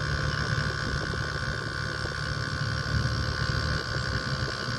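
Inverter air-conditioner compressor running steadily, with a low hum and a steady high whine, pumping discharge pressure up to about 350 psi during a compression test.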